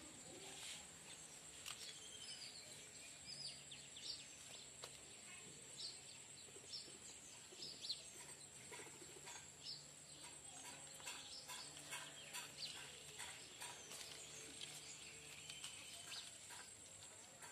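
Faint outdoor ambience: scattered short bird chirps over a steady high-pitched whine.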